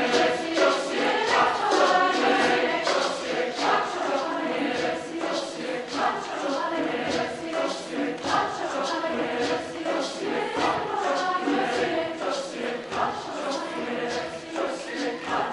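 A large junior high mixed choir singing.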